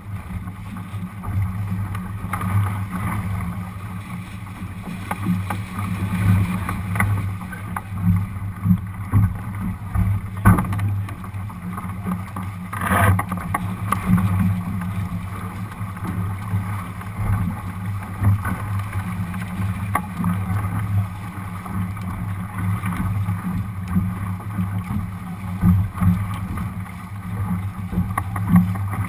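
Water rushing and splashing along the hull of a Lightning sailboat sailing upwind through chop, with wind noise on the microphone as a steady, uneven rumble. A few sharp wave slaps stand out, the loudest about 13 seconds in.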